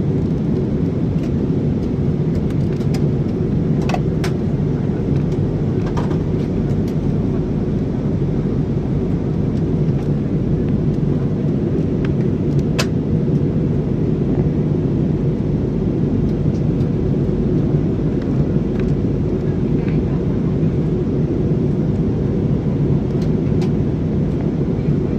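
Steady drone of an airliner in flight heard inside the passenger cabin: engine and airflow noise, low and unchanging, with a few faint clicks.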